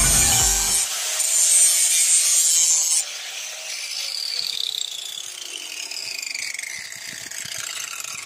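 Angle grinder's abrasive disc grinding the steel edge of a lawn mower blade held in a vise, a loud harsh hiss, with the tail of background music in the first second. About three seconds in the grinding stops and the grinder winds down with a slowly falling whine.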